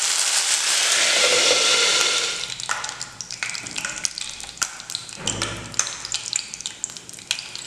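Fresh curry leaves frying in hot oil with cumin and mustard seeds: a loud hissing sizzle for about two and a half seconds that dies down to scattered crackles and pops.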